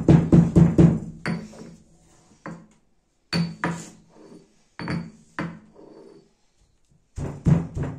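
Snacks being crushed: a handful of separate crunching knocks, spaced irregularly over several seconds. A fast, regular beat of rhythmic music runs at the start and comes back near the end.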